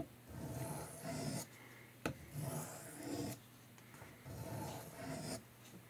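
Steel knife blade scraped across a wet sharpening stone in short strokes, about six in all, each about half a second, with a small sharp click about two seconds in.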